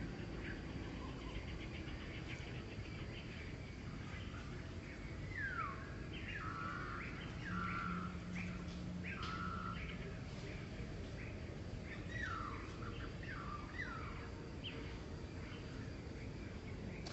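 Animal calls: groups of short, high chirps, each sweeping down in pitch and some ending in a brief held note, mostly between about five and fourteen seconds in, over steady background noise.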